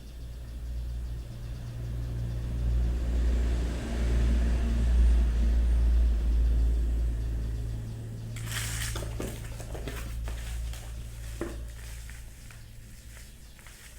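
A 12 V DC gear motor running under power with a low, steady hum that swells through the first half and eases off after about eight seconds. After that come crackling, rustling handling noises, like plastic packaging being handled.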